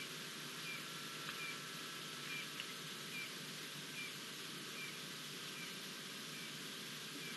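An animal calling: a short high chirp repeated steadily, a little more than once a second, over a steady background hiss.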